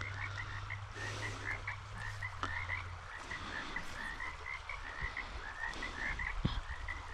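A chorus of animal calls: short, high calls repeating several times a second without a break. A low steady hum underneath stops about three seconds in.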